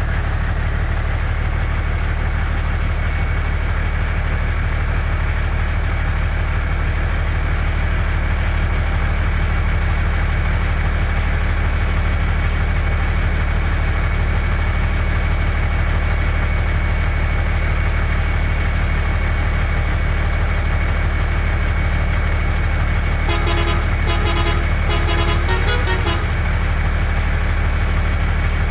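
A steady, low truck-like engine drone with a faint constant whine. About 23 seconds in, a horn beeps in three short groups of rapid pulses.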